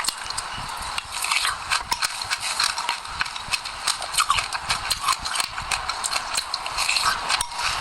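Close-miked chewing of crunchy seeds, a dense run of small crackles and mouth clicks.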